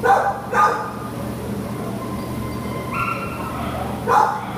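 Dog barking in short yips: two at the start and another pair about four seconds in. Between them a thin steady whine steps up in pitch about three seconds in.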